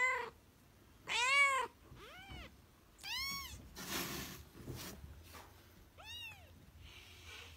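A kitten mewing: about five short, high mews, each rising and falling in pitch, the loudest about a second in.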